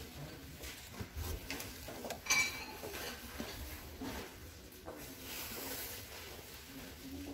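Shop ambience, a low murmur, with a single bright, ringing clink of hard goods about two seconds in.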